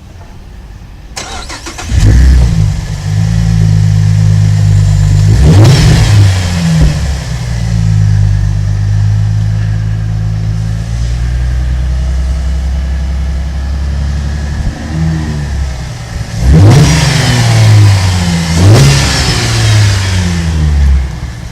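Holden 3.6 L Alloytec V6 petrol engine starting about two seconds in, then idling with throttle blips: one rev about five seconds in and several quick revs near the end.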